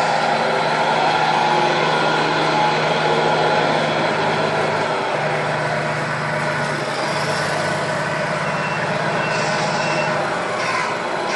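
1/14-scale radio-controlled model trucks' sound units playing a steady diesel-truck engine sound, with a short run of high reversing beeps about three-quarters of the way through.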